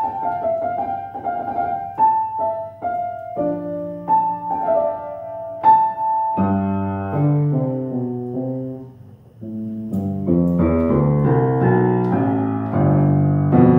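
Acoustic piano played by hand, its hammer felts freshly ironed to voice the tone: a single-note melody to start, then chords with bass notes from about six seconds in, a brief pause near nine seconds, and fuller chords after.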